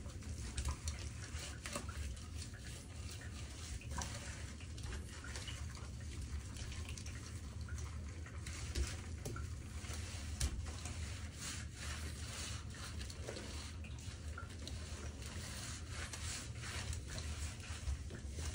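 Shower water running, spattering steadily with many small irregular ticks.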